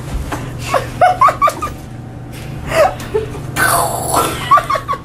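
Young women's playful wordless vocalising: short sliding whoops, squeals and laughs, over a steady low hum. About three and a half seconds in, a loud rustling scrape comes as the phone brushes against a jacket.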